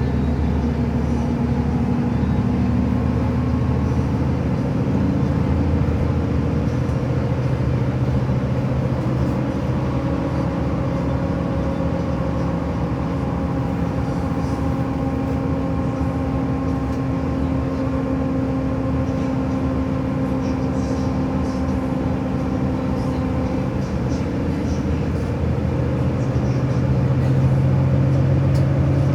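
A vehicle's steady engine drone, a low hum with a few steady tones that holds level throughout.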